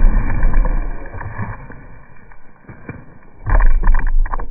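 A puppy digging and scuffling in dry dirt right against the microphone, heard as loud rumbling and scraping. It dies down about a second and a half in and comes back briefly near the end as the dog scrambles away.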